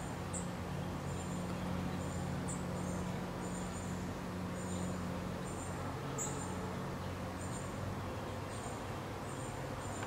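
Garden ambience: a steady low hum with short, high-pitched double chirps repeating about once a second.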